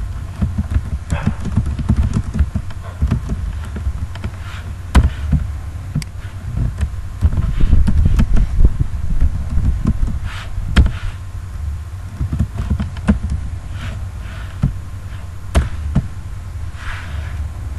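Computer keyboard keys clicking in irregular taps, a few sharper clicks standing out, over a steady low background rumble.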